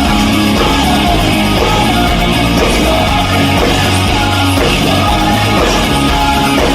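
A live band plays loud, amplified rock music through a PA system, with a singer's voice over the instruments.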